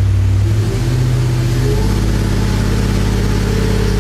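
455 big-block Oldsmobile V8 with FAST electronic fuel injection running on an engine dyno, a steady loud engine note that shifts pitch slightly in two small steps, under a second in and near two seconds in.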